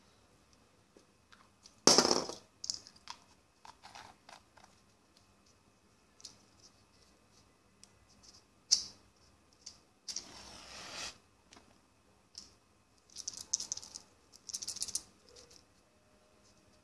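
Plastic bottle caps and wooden matchsticks handled on a tabletop: scattered sharp clicks and taps, the loudest a crisp click about two seconds in, and a scrape lasting about a second near the middle.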